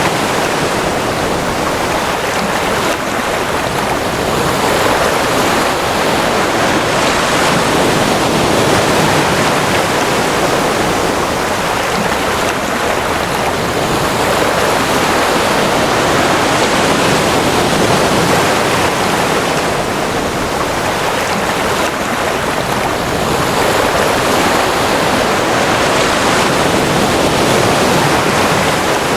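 Ocean waves washing in a steady rush of surf, swelling and easing gently about every nine seconds.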